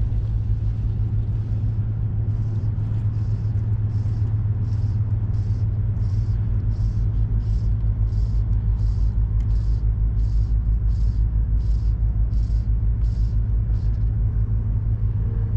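Boat engine running steadily with a low, even hum. Over it a faint hiss pulses about twice a second, from about two seconds in until shortly before the end.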